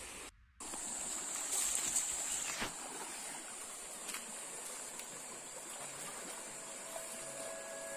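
Shallow rocky stream running, a steady rush of flowing water, with a few light knocks in the first half. The sound drops out briefly just after the start.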